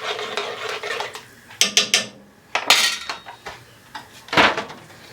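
Metal spoon scraping and clinking against a cooking pot while stirring, with several sharp clinks and a loudest knock near the end.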